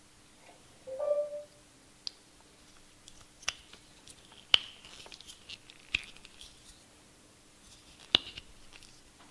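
Plastic clicks and light clatter from the black plugs of a sewing machine foot control cord being handled and pressed together, with a few sharp snaps; a brief squeak sounds about a second in.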